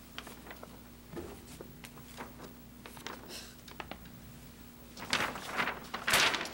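Faint clicks and light handling noises over a low steady hum, then a louder stretch of rustling about five seconds in.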